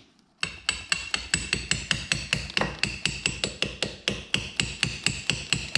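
Ball-peen hammer tapping the pivot rod, metal on metal, in a fast, even run of light strikes, about five a second, each with a short ring. The rod is being driven home through the tilt ram and the new upper trim bushings on a Mercury outboard.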